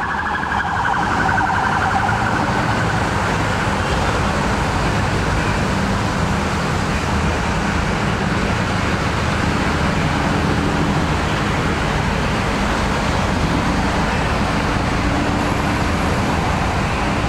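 A wavering siren fades out over the first few seconds. Then boat engines run steadily close by, with a marine unit's boat manoeuvring in to the pier.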